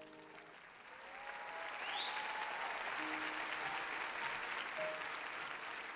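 Studio audience applauding and cheering, building up over the first second or two, over soft background music.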